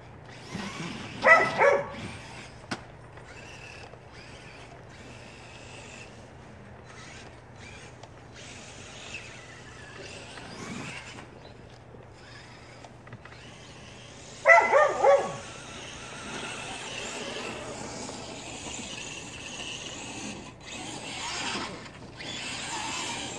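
Dog barking: a quick run of barks about a second in and another about fourteen seconds in, with a faint steady background between.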